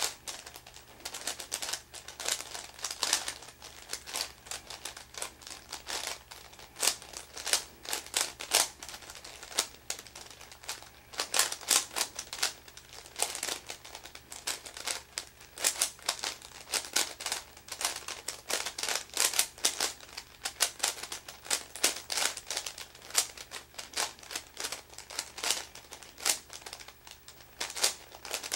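Meffert's 4x4 puzzle cube being turned quickly by hand: irregular runs of plastic clicks and clacks as its layers snap round, with short pauses between runs.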